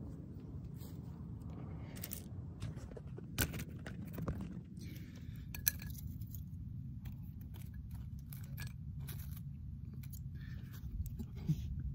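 Small dry sticks clicking and scraping as they are laid by hand onto a freshly lit tinder bundle, with a handful of sharp clicks spread through. A steady low rumble runs underneath.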